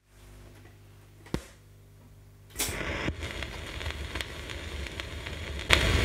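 A portable record player's stylus set down on a spinning record. A faint low hum and a single click come first, then the needle lands about halfway through with a sharp tick. After that comes the crackle and occasional pops of surface noise in the lead-in groove before the music starts.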